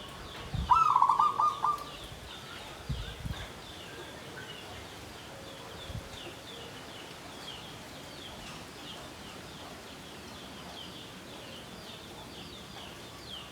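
Zebra dove (perkutut) giving one short, rapid rolling trill about a second in. A steady high chirping runs underneath, and there are a couple of low thumps about three seconds in.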